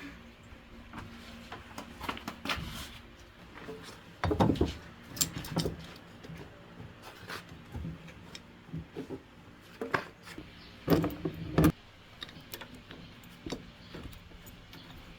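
Irregular clicks, knocks and clatter of hands working with tools and machine parts, with two louder bursts of clattering about four seconds and eleven seconds in.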